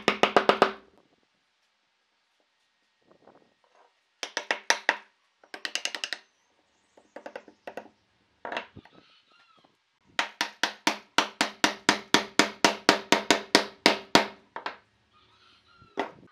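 Wooden mallet tapping the mortise-and-tenon joints of a wooden frame together, in several quick runs of sharp, ringing wooden knocks. The longest run, in the second half, has about two dozen knocks at about five a second.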